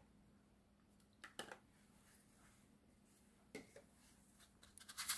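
Near silence with a few faint clicks and taps of kitchen utensils and seasoning containers against a glass mixing bowl, a quick run of them near the end, as seasonings are added.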